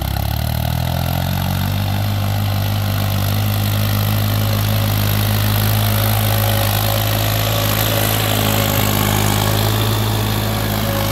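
New Holland tractor's diesel engine pulling a tined field cultivator through the soil. The engine speeds up over the first couple of seconds, then runs steadily under load.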